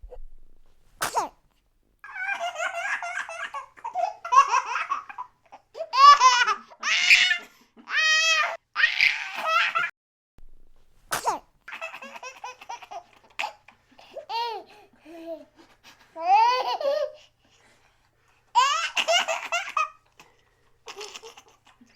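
Baby twin laughing hard in repeated high-pitched bouts, set off by the other twin's sneezes. A short sharp sneeze comes about a second in and again about eleven seconds in, and each is followed by several seconds of belly laughs.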